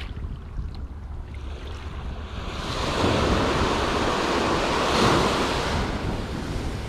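Ocean surf breaking on a sandy beach: a wave builds about three seconds in, is loudest a couple of seconds later and then washes out, with wind rumbling on the microphone.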